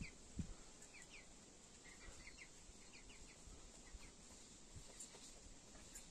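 Faint, quick bird chirps in short runs over a quiet outdoor background, with two soft low thumps at the very start.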